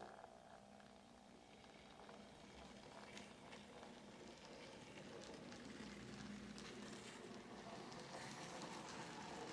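Faint running noise of an N gauge model steam locomotive and its coaches on the track: a low, steady rumble with scattered light clicks, growing a little louder.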